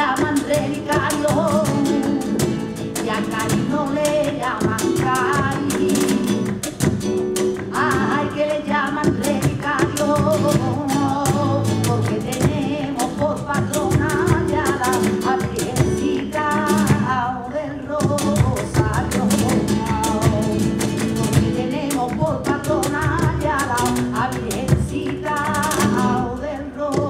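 Live flamenco: a woman singing in a wavering, ornamented cante over Spanish guitar, with palmas hand-clapping keeping the rhythm.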